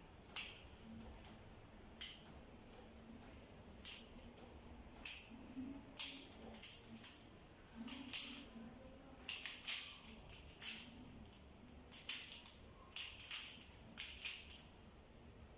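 Plastic Pyraminx puzzle being twisted quickly in a timed solve: irregular short clicks and clacks as its layers and tips are turned, sometimes in quick runs of several.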